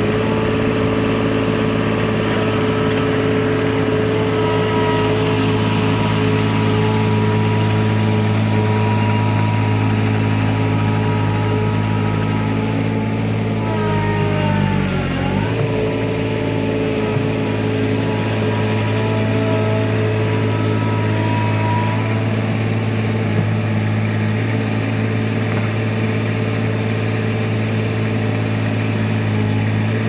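Compact tracked skid steer loader's engine running steadily, with a brief dip and rise in pitch about halfway through.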